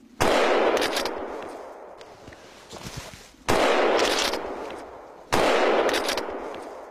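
Three rifle shots from a scoped hunting rifle, the first just after the start, the second about three seconds later and the third under two seconds after that, each followed by a long echo rolling back through the forest.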